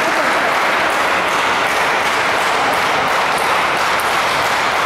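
Steady crowd noise filling a large indoor sports hall, an unbroken wash like continuous applause and chatter. There is a faint high tick about four seconds in.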